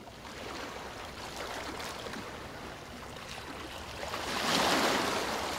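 Small waves lapping and washing on calm water, a steady wash with faint splashes that swells louder for about a second, a little past four seconds in.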